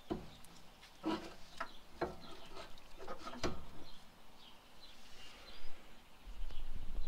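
Scattered light metallic clicks and knocks from handling brake parts: an old brake pad and the brake caliper being worked around the steering knuckle and set aside.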